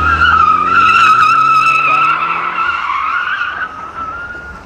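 A BMW's tyres squealing in a long, wavering drift, with the engine held at high revs and rising in pitch underneath. The squeal eases off toward the end.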